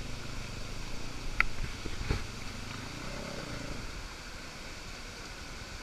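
Kart cross buggy engine running at low revs, fading to a faint rumble about a second in, with a single sharp knock about two seconds in.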